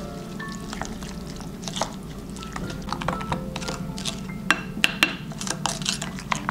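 Wooden spoon stirring a thick mayonnaise dressing in a glass bowl: irregular clicks and knocks of the spoon against the glass, with wet mixing sounds, the sharpest knocks a little before and after the five-second mark. Light background music plays underneath.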